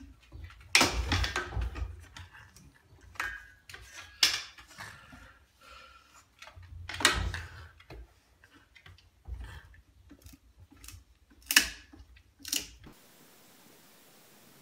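Irregular knocks and scrapes of a long wooden stick, held crosswise in a French bulldog's mouth, bumping against a wall and door frame. The knocking stops suddenly near the end, leaving a faint hum.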